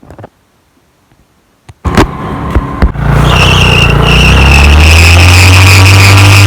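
Yamaha R15 V2's single-cylinder engine held at high revs in a burnout, the worn rear tyre spinning on the ground with a steady high squeal. It starts about two seconds in, after near silence and a few knocks, and holds loud and even from about three seconds in.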